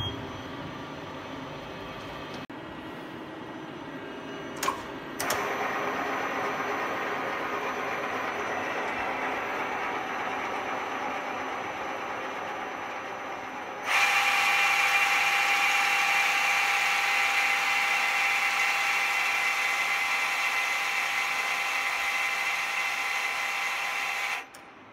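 Hyundai KIA SKT 21 LMS CNC lathe running with a steady machine hum and a couple of short clicks about five seconds in. About fourteen seconds in, a live tool in the turret spins up to a loud, steady high whine, which cuts off suddenly near the end.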